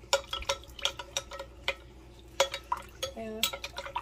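Metal spoon stirring beef bouillon base into hot water in a glass Pyrex measuring cup, clinking against the glass in quick irregular taps.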